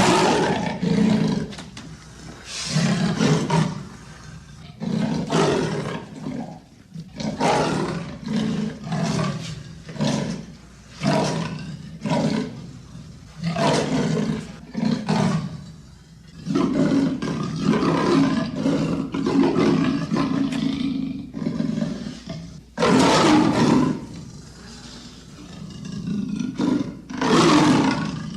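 Leopard calling with a series of harsh, rasping grunts, about one or two a second, with longer rasps in the second half and the two loudest near the end.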